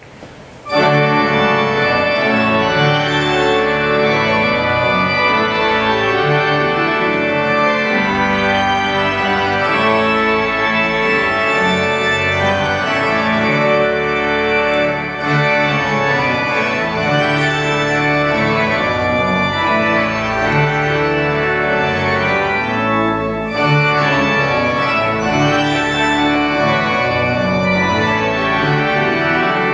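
Church organ playing sustained chords for a processional, coming in just under a second in.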